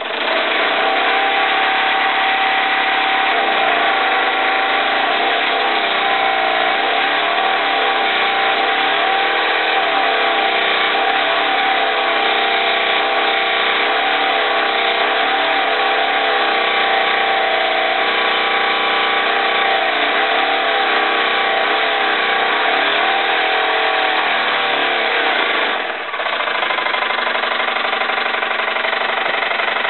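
Jensen 75 toy steam engine running, driving a pencil sharpener through a spring belt and pulleys. Its pitch sags and recovers again and again as the pencil loads the sharpener: the sharpener turns too hard for the engine, and the belt slips on the small pulley. There is a brief dip in the sound about 26 seconds in.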